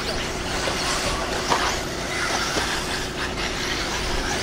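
Eighth-scale electric RC buggies racing on a dirt track: motors whining, their pitch rising and falling, over a steady noise of tyres and drivetrains, with one short knock about a second and a half in.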